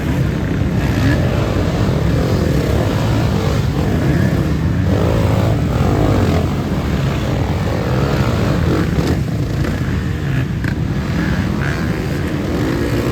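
Racing off-road motorcycle engines running hard under a steady low rumble, their pitch rising and falling as bikes rev and pass.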